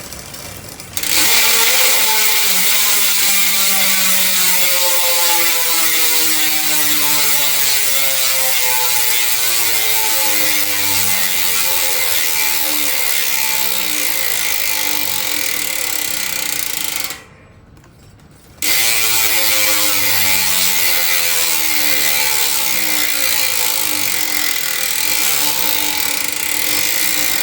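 Speedone Sniper V3 rear hub freewheeling in a carbon frame: a loud, fast ratcheting buzz from the pawls whose pitch falls steadily as the spun wheel slows. It stops about 17 seconds in and starts again a second and a half later with a fresh spin. In the carbon frame the sound is muffled and boxy, with a slight echo.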